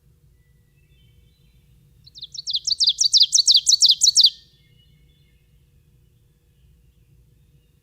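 Ovenbird singing its 'teacher, teacher, teacher' song once: a quick run of about a dozen repeated high notes lasting a little over two seconds, growing louder as it goes.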